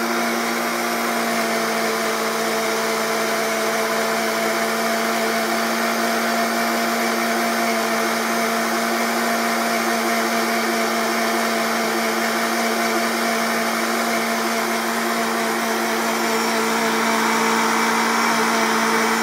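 Countertop blender with a glass jar running on its liquefy setting, blending protein powder and skim milk into a shake: a steady motor whine that holds one pitch throughout.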